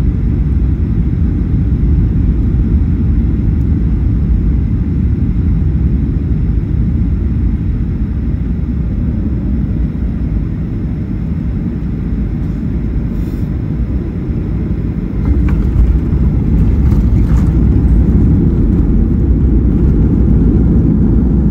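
Cabin noise of a Boeing 737-800 landing and rolling out: a steady, loud low rumble of engines, airflow and wheels, growing louder about fifteen seconds in.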